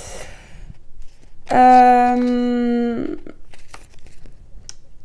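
A sheet of paper adhesive labels handled and flexed by hand, giving faint crinkles and small clicks. About a second and a half in, a loud steady buzz-like tone of unclear source sounds for about a second and a half and then stops.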